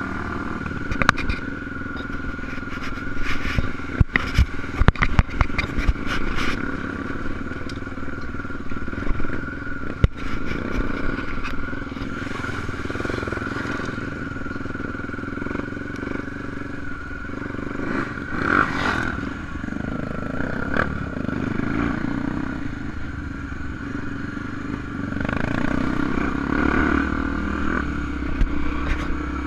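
Enduro motorcycle engine running steadily under way, with a run of sharp clattering knocks a few seconds in and scattered ones later.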